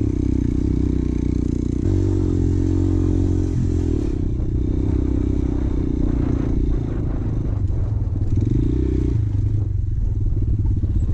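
Motorcycle engine running steadily while riding a rough off-road mountain trail. Its pitch shifts a few times with throttle and gear changes, and there are scattered knocks and rattles over the top.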